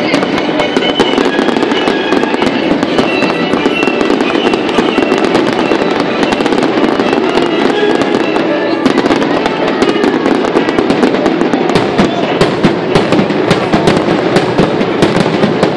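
Aerial fireworks display: shells bursting and crackling without pause, the sharp cracks coming thicker in the second half, over music.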